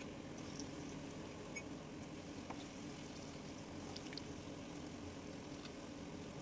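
Urad dal pakodas deep-frying in hot oil: faint steady bubbling with a few small scattered crackles.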